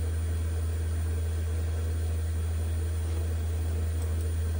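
A steady low hum from a running iMac G3, with a fainter higher tone above it, at an even level throughout.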